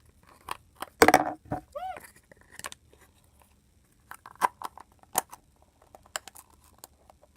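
Small plastic egg and capsule being handled and pressed together: scattered sharp clicks, taps and crinkling, loudest about a second in.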